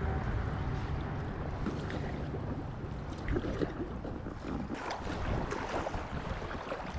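River water rushing around an inflatable kayak, with the paddle blades dipping and splashing from about three seconds in and wind rumbling on the microphone.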